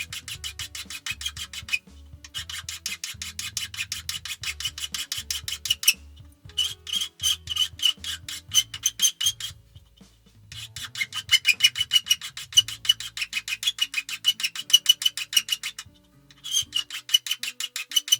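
Hand tool rasping and scraping on a wooden plane knob in quick, even strokes, several a second, in runs broken by short pauses. Faint background music underneath.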